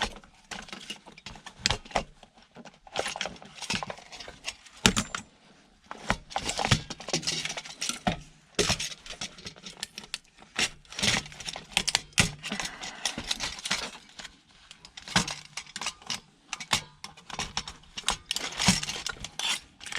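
Irregular clicks, knocks and scraping rattles of plastic and metal as a printer's cartridge holder is pried apart by hand with tools.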